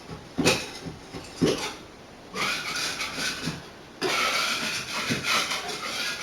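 Small hard objects being handled and set down, two sharp clacks followed by longer stretches of scraping and rustling as items are shuffled around.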